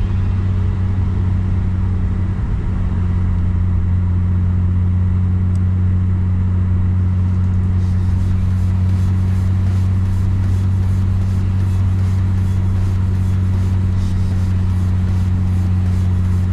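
Car driving at a steady speed: a constant low drone of engine and road noise, with a faint, rapid, regular ticking joining about halfway through.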